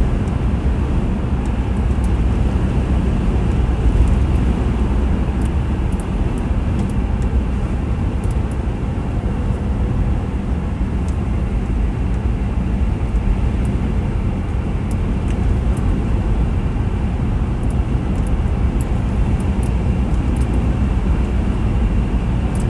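Steady road and engine noise heard from inside a moving car's cabin: a low, even rumble with no breaks.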